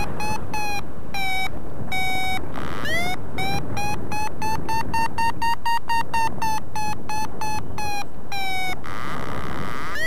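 Flymaster Vario paragliding variometer beeping its climb tone over wind noise. The short chirping beeps speed up and rise in pitch through the middle, then slow and drop back before a brief pause. This signals the glider climbing in lift, strongest in the middle.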